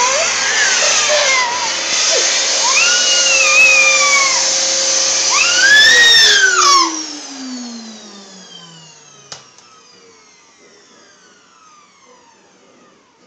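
Household vacuum cleaner running, switched off about six seconds in, its motor whine falling steadily in pitch as it winds down to quiet. A baby's voice rises and falls in long squeals over the running machine.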